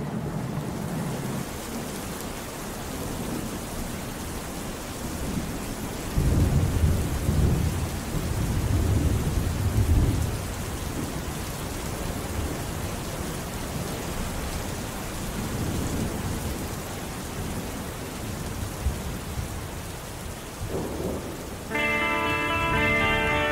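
Heavy rain falling steadily, with a long roll of thunder about six seconds in that lasts several seconds, and a fainter rumble later on.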